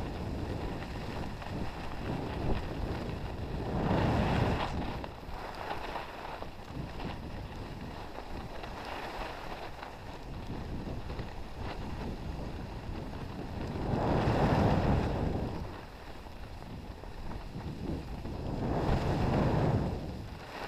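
Wind rushing over a GoPro's microphone as a skier runs down a groomed slope, mixed with the skis sliding over the snow. The rush swells louder three times: about four, fourteen and nineteen seconds in.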